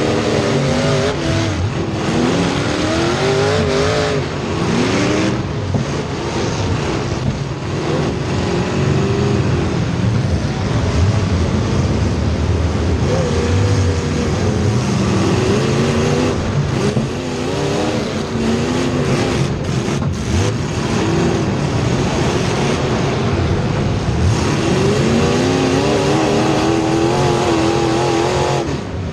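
Race car engines running at racing speed, several at once, their pitch repeatedly climbing and falling as the cars accelerate and back off around the track.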